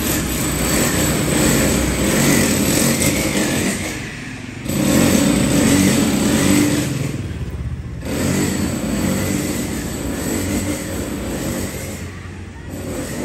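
Motor scooters running and riding past close by, their engine noise swelling and fading, loudest about five seconds in.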